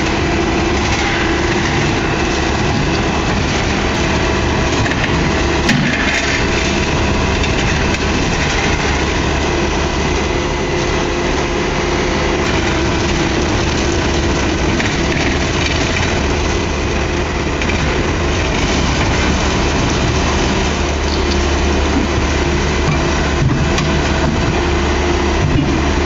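A heavy machine's engine running steadily at a constant speed, with no marked revving.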